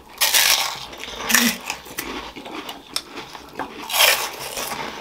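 Close-miked eating: finger crisps (dhumro) being bitten and crunched, in three noisy bursts, the first near the start, a short one just after a second, and another around four seconds in.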